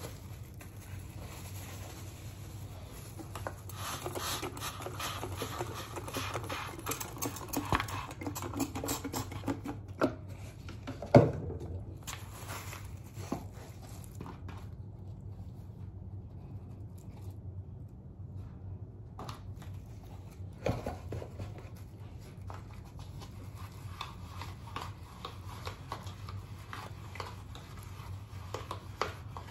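Hands working through a mannequin's hair, with rustling, scraping and small clicks that come and go; one louder knock about eleven seconds in.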